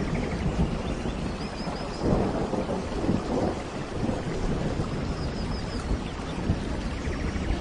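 Steady heavy rain with thunder rumbling low underneath, swelling about two seconds in.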